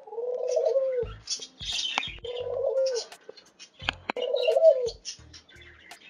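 Mourning dove cooing: three low coos about two seconds apart, the last the loudest. Faint high chirps from other birds come between them.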